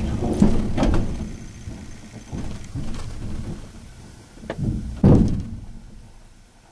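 Knocks and thuds from scrap being handled, then one heavy slam about five seconds in, typical of a vehicle door being shut; after it the background is much quieter.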